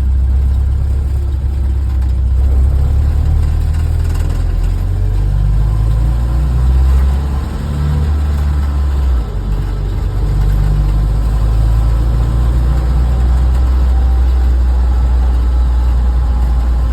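BMW 2002 Touring's four-cylinder engine and drivetrain running with a steady low rumble that shifts about nine seconds in. The uploader supposes the noise is an abnormal one from the rear axle.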